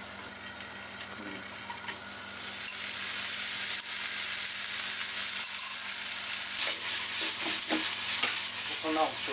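Marinated tofu cubes frying in hot oil in a nonstick frying pan. The sizzle grows louder about two to three seconds in, and near the end there are a few knocks as the pan is shaken to toss the cubes.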